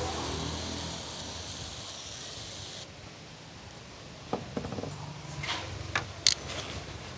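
Aerosol can spraying white foam onto a die-cast toy car: a steady hiss that cuts off about three seconds in, followed by a few sharp clicks.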